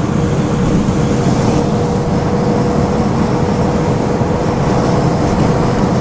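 Steady road and wind noise inside a car cabin while driving at highway speed, heaviest in the low end, with a thin steady hum running through it.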